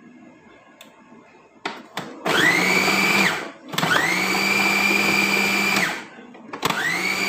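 Electric food processor pulsed to chop onion. After a couple of short blips, its motor runs three times: each time the whine rises quickly to a steady pitch, and the first two runs cut off after one to two seconds.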